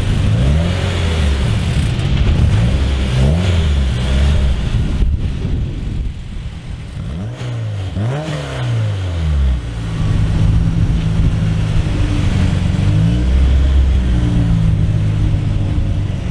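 Japanese performance car's engine accelerating hard, its pitch climbing and dropping again and again as it revs and changes gear, with a sweep up and back down near the middle and fairly steady high revs toward the end.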